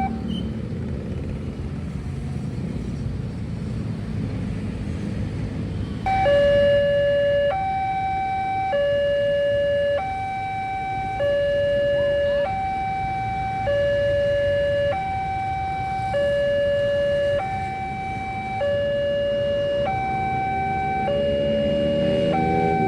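Railway level-crossing warning alarm sounding a two-tone signal that alternates between a low and a high tone about every second and a quarter. It stops about a second in and starts again about six seconds in, over a steady low rumble of vehicles. The alarm signals that a train is approaching.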